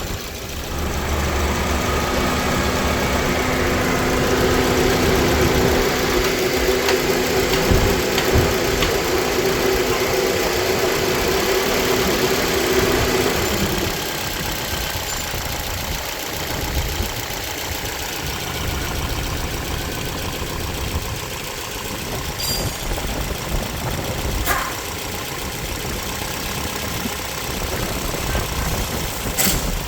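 Toyota engine idling with a misfire. A steady hum that rides over the idle stops about halfway through, and the running then continues quieter, with a few light clicks.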